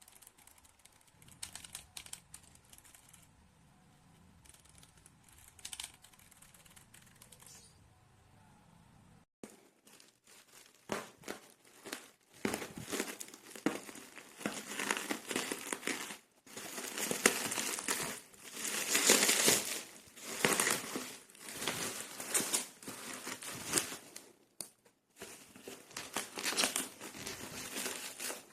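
Plastic packaging crinkling and rustling as it is handled: faint at first, then louder, dense crinkling in repeated bursts from about a third of the way in.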